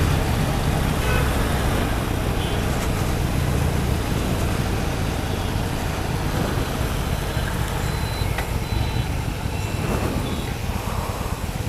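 Harley-Davidson Sportster 883's V-twin engine running steadily while riding in traffic, a low rumble under steady wind and wet-road tyre noise on the microphone.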